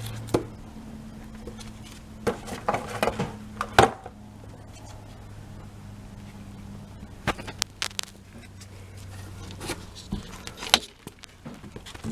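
Hands handling a car air filter and the plastic air filter housing of a Hyundai Matrix: scattered clicks, knocks and rustles in short clusters, over a steady low hum.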